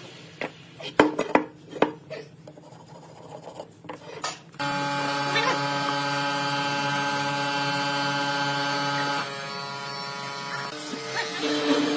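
A few sharp wooden knocks and clatters as a pine block and hand tools are handled and set down. From just before the middle, background music with held tones takes over.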